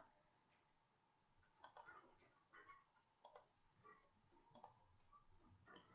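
Three faint computer mouse clicks about a second and a half apart over near silence, the kind made when choosing a pen tool from an on-screen menu.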